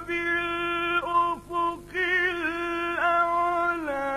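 Male Qur'an reciter's voice chanting in the melodic, drawn-out mujawwad style. He holds a long note, breaks briefly, then carries an ornamented phrase with wavering turns in pitch.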